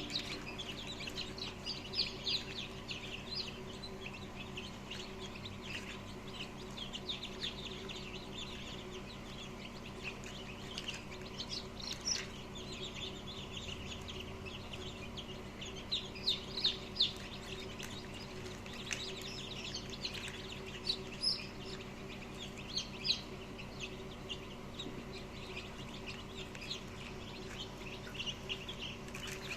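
A crowd of newly hatched chicks peeping continuously, many short high cheeps overlapping, over a steady low hum.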